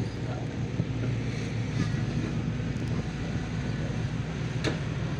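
Heavy diesel engine running steadily at an even, low pitch, with one sharp click about four and a half seconds in.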